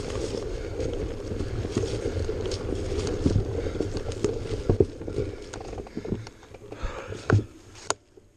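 Off-road vehicle engine running at low speed under load, with repeated knocks and clatter from the rough trail. It fades and cuts off shortly before the end.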